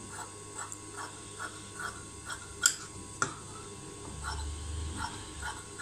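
Tailoring scissors snipping through blouse fabric: a run of small clicks about every half second, with two sharper, louder clicks near the middle.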